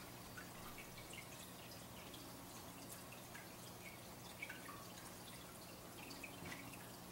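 Quiet room tone: a low, steady electrical hum under faint hiss, with scattered faint drip-like plinks.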